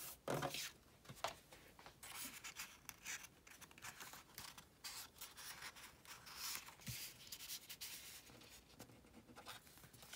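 Paper rustling and sliding as a sheet of patterned paper is handled and tucked into a paper pocket: a run of soft, irregular scrapes.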